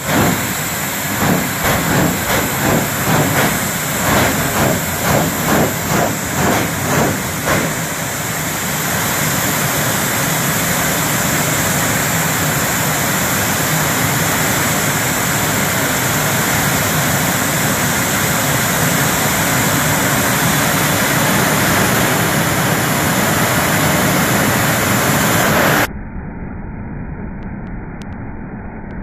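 Jet engines of two jet-powered drag cars running on the starting line, very loud. For the first several seconds the sound swells and falls in pulses about twice a second, then settles into a steady roar. Near the end it turns suddenly quieter and duller.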